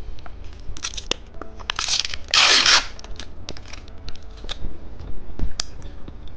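A candy wrapper being torn open and handled: a few short rips, the loudest about two and a half seconds in, with crinkling clicks and ticks throughout.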